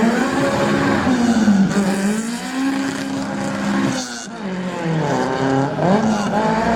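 Car engine revving up and down over and over, with a brief drop-off about four seconds in, while its tyres squeal as the car drifts.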